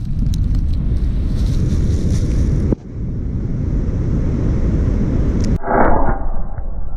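Loud low rumble and roar of a large explosive charge's blast. It breaks off abruptly twice, and after the second break it sounds duller.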